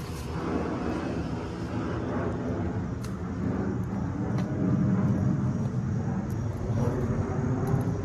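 A steady low mechanical drone that swells a little around the middle and eases off again, with a few faint ticks.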